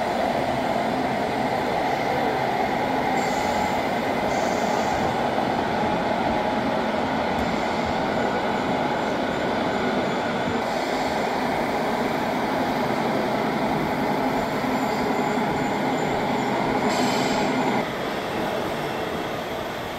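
Steady rumble of an idling diesel truck engine, unbroken throughout, a little quieter for the last two seconds.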